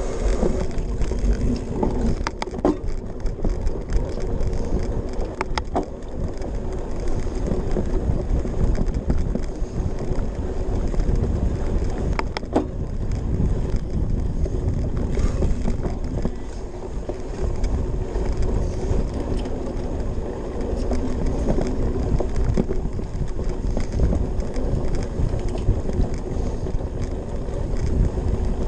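Cyclocross bike ridden hard over bumpy grass and dirt, heard from a camera mounted on the bike: a steady rumble and rattle from the knobby tyres and drivetrain, with a few sharp clicks and knocks from the bike.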